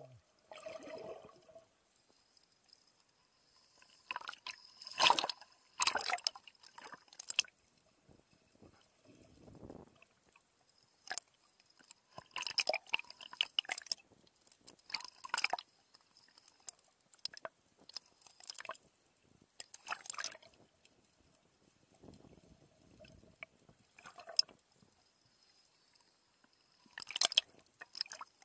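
Seawater sloshing and splashing around a 360 camera's underwater housing at the surface, in irregular bursts a second or so long with quiet gaps between.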